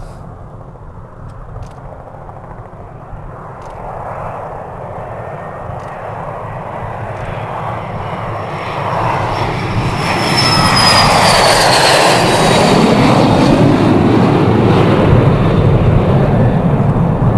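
HondaJet twin-engine business jet taking off: the jet engines at takeoff power grow steadily louder as it rolls toward and past the listener. A high turbine whine drops in pitch about ten seconds in as the jet goes by, then a steady loud jet roar continues as it climbs away.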